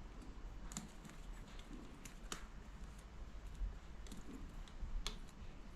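Irregular light clicks and taps of wires and a plastic connector block being handled, as the grey interlink wires of a mains smoke alarm are fitted into the block. The sharpest click comes about two seconds in.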